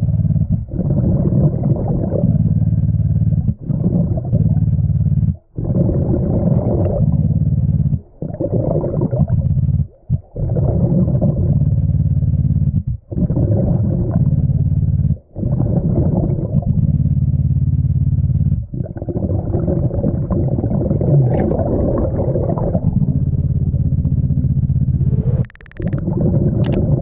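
Loud low underwater rumbling and rushing, broken by short sudden drop-outs every two to three seconds.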